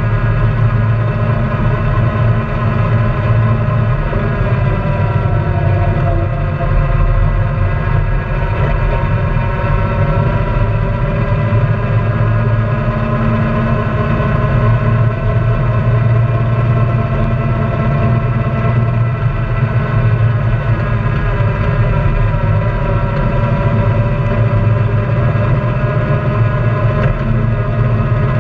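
Honda Pioneer 700-4 side-by-side's single-cylinder engine running steadily under way, heard from on board, its pitch wavering slightly with the throttle.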